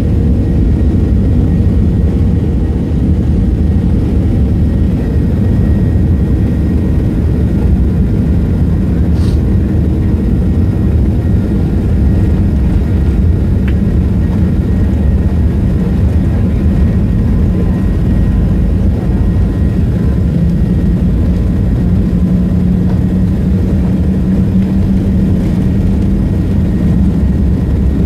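Airliner's engines at takeoff power with the rumble of the roll down the runway, heard from inside the cabin: a loud, steady roar. A low hum grows stronger about twenty seconds in as the plane gathers speed.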